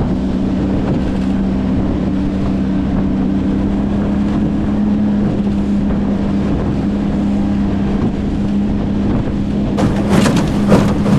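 Outboard motor of a small aluminium jon boat running steadily at speed, with wind buffeting the microphone and water rushing past the hull. A few sharp knocks and splashes come near the end.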